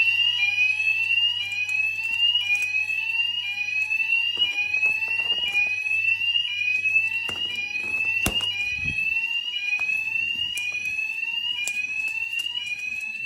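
Fire alarm sounder going off during a test, with a rising sweep tone that repeats about once a second. A few faint knocks sound in the background, the sharpest about eight seconds in.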